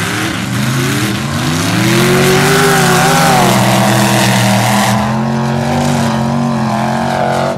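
Mud-racing pickup truck's engine revving hard, its pitch climbing and dipping with the throttle, then falling away near the end.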